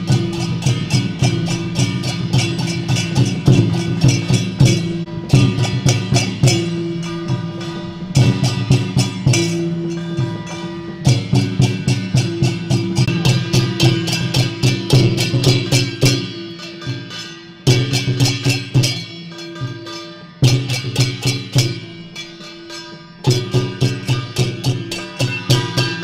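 Temple procession gong-and-cymbal percussion: hand cymbals and gongs struck in a fast, dense rhythm with a drum, over a steady low pitched tone. The playing thins out briefly a few times in the second half, then picks up again.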